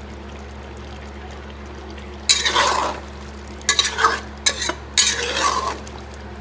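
A steel spatula stirring and scraping through chunks of chicken curry in a pot: about four scraping strokes, beginning a little over two seconds in. A steady low hum runs underneath.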